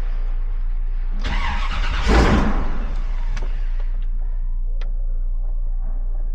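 1957 Chevrolet Bel Air's fuel-injected engine running after catching during a flood-clear crank, which it should not have done. It runs steadily, with one louder surge of about a second and a half starting about a second in.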